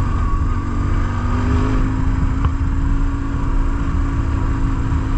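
A BMW R1150GS Adventure's flat-twin boxer engine running under way, its note rising a little over the first couple of seconds and then holding steady. Heavy wind rumble on the microphone sits under it.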